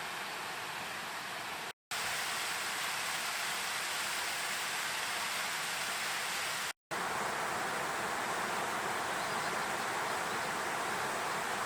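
Steady rush of river water running through a rocky gorge, cut off twice by brief moments of total silence.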